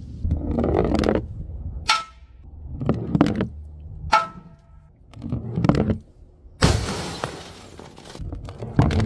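Glass bottles being smashed in a run of separate hits: two sharp impacts with a brief glassy ring, then a loud shattering crash about two-thirds of the way in that trails off, and another sharp hit near the end.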